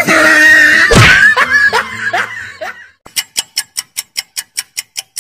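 A loud noisy burst with a few short falling cries. Then, from about three seconds in, a fast, even run of sharp ticks, about six a second, with dead silence between them, like an edited-in ticking sound effect.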